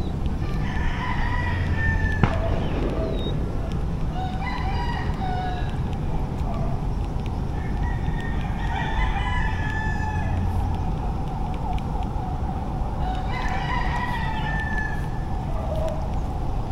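Rooster crowing four times, each crow lasting about two seconds, over a steady low rumble.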